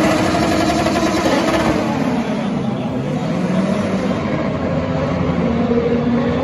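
Super Formula single-seater's turbocharged four-cylinder engine pulling away from its pit box after a pit stop and running down the pit lane with a steady engine note.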